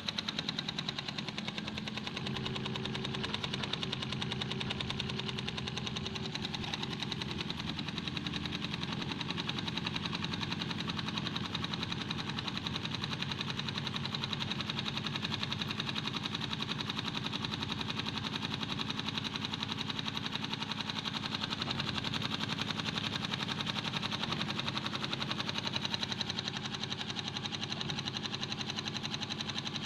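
Small homemade steam engine running at speed, giving a rapid, even run of beats that holds steady throughout.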